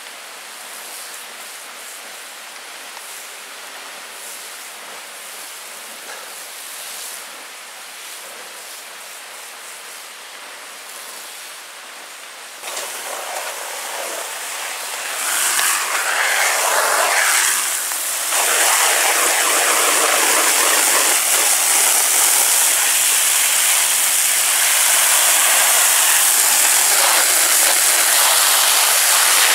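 Water from a garden hose spraying onto hot glowing char in a Kon-Tiki biochar kiln, a steady hissing rush of spray and steam as the kiln is quenched. It grows markedly louder about halfway through and stays loud.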